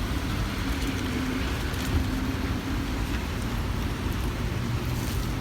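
Steady light rain with a low rumble of road traffic.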